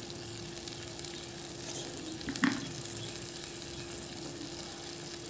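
Mung dal simmering in a kadai, the watery dal bubbling and sizzling steadily in the oil, with a faint steady hum underneath. A brief knock about two and a half seconds in.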